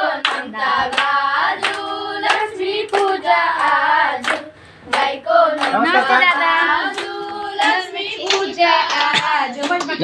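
A group of girls singing a festive song in chorus, clapping their hands in time; typical of Tihar bhailo singing at a household's gate.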